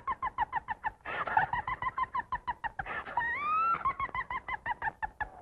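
A rapid, high-pitched clucking cackle in short pulses, about six a second, broken by a couple of rising whoops: a cartoon vocal or sound effect.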